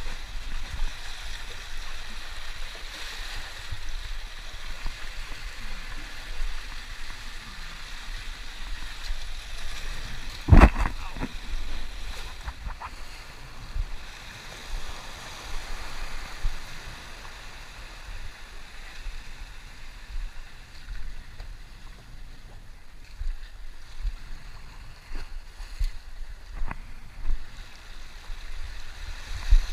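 Seawater washing and swirling over a rocky intertidal platform around the feet of someone wading, with a low rumble on the microphone. One sharp knock about ten seconds in.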